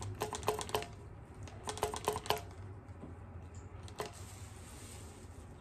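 Plastic spray bottle's trigger clicking in two quick runs of about five clicks each, then once more about four seconds in.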